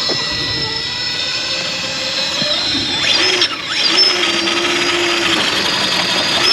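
Electric motor and geared drivetrain of a Class 2 scale RC crawler truck whining as it climbs rock, the pitch sweeping up and down about three seconds in and again near the end as the throttle changes.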